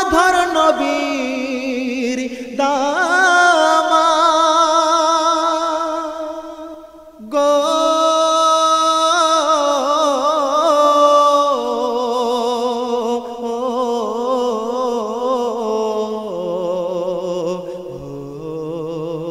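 Bengali Islamic devotional song (gojol): a singing voice drawing out long, wavering held notes, dipping away about six seconds in and coming back a second later.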